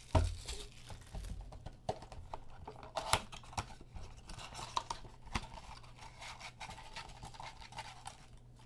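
Trading card pack wrappers crinkling and tearing as packs are opened and cards handled, a scatter of soft crackles and scrapes. There is a low thump right at the start.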